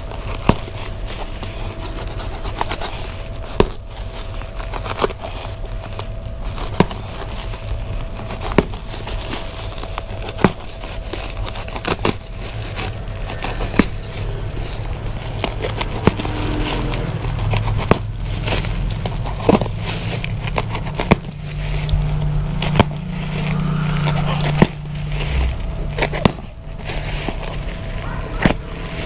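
Woven plastic sack crinkling as its stitched seam is pulled open by hand, the stitching string snapping free in sharp clicks every second or two. A steady low hum runs underneath.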